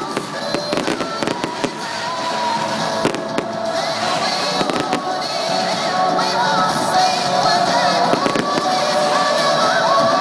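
Fireworks going off in repeated sharp bangs and crackles, with music playing over them throughout.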